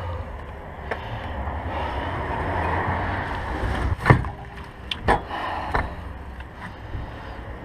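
Hand work on a car's underside: a scraping, rushing noise for a few seconds, then a sharp knock about four seconds in and two lighter knocks about a second apart.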